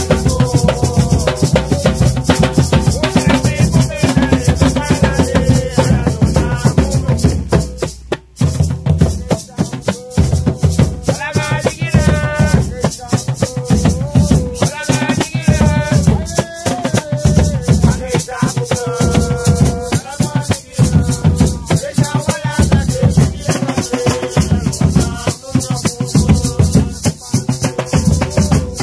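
Garifuna drumming: rope-tensioned, skin-headed hand drums played with bare hands in a fast, dense rhythm, with a pair of gourd shakers and singing over it. The sound briefly drops away about eight seconds in before the drumming carries on.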